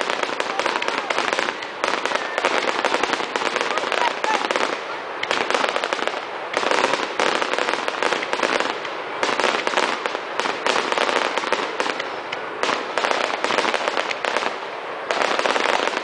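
Fireworks display: aerial shells bursting in a dense, continuous barrage of rapid cracks and crackling pops, easing off briefly a few times before picking up again.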